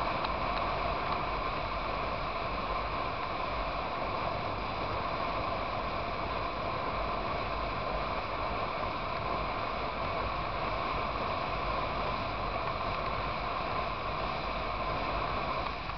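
Steady wind rush and road noise from riding at highway speed on a motorcycle, with the engine holding a constant cruise underneath.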